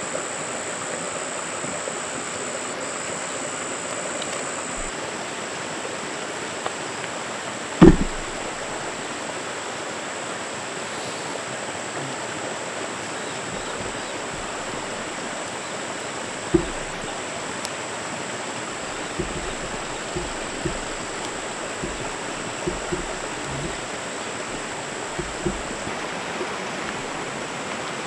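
Steady heavy rain hissing without a break. A loud low thump about eight seconds in and a smaller one later stand out, followed by scattered faint knocks.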